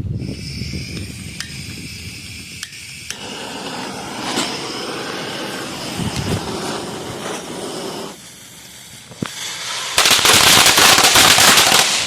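A string of firecrackers going off in a rapid crackle, with a louder, denser burst of pops near the end.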